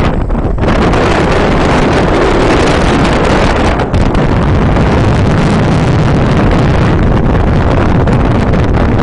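Wind buffeting the microphone aboard a moving boat: a loud, steady rush with deep rumble, the boat's engine running underneath, and a brief break about four seconds in.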